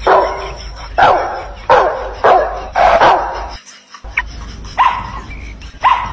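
Jack Russell-type terrier barking through a megaphone strapped to its back: five loud barks in quick succession, then, after a short break, a few quieter, higher barks.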